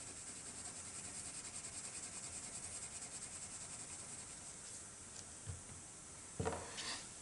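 Pencil shading on paper: quick, even back-and-forth scratching strokes, about five a second, which die away after about four and a half seconds. Near the end comes a short, louder knock and rubbing as an eraser is taken up.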